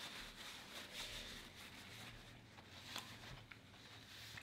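Quiet chewing of a fried fish sandwich over a low, steady room hum, with one light click about three seconds in.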